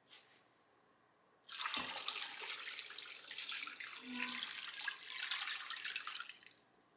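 Kitchen tap running into the sink for about five seconds, starting suddenly and then shut off.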